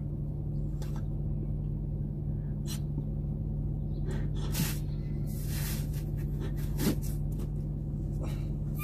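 A man blowing into a toy balloon: several puffs of breath, the longest lasting about a second a little past halfway, over a steady low hum.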